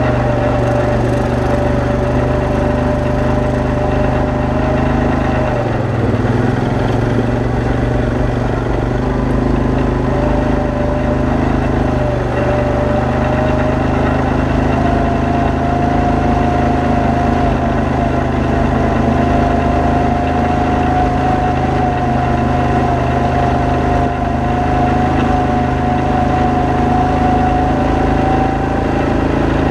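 ATV engine running steadily while the ATV is ridden along a gravel trail. Its pitch drops and wavers about six seconds in, then rises slowly and holds higher through the rest.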